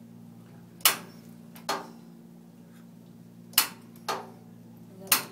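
Overhead X-ray tube housing's locks clacking as the tube is released and set to its cephalic angle: sharp metallic clacks in pairs, the second of each pair quieter, over a steady electrical hum.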